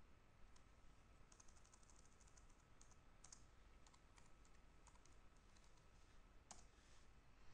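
Faint computer keyboard typing: quick runs of light key clicks, with one sharper click near the end.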